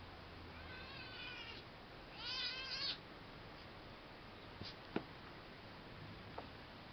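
Siamese kitten meowing twice during play-fighting with a beagle puppy, the second call louder and wavering, followed a couple of seconds later by a few sharp taps or knocks, the loudest about five seconds in.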